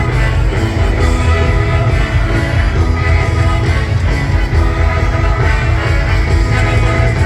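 Live rock band playing a song with a singer, guitars and a heavy bass.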